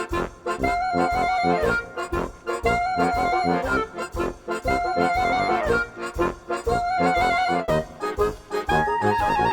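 Background music: an upbeat accordion-led tune with a steady beat and a short melody repeating about once a second.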